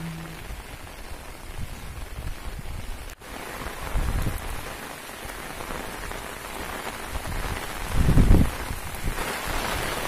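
Steady rain falling on a wet village road and fields, with low gusts of wind buffeting the microphone, the strongest about eight seconds in.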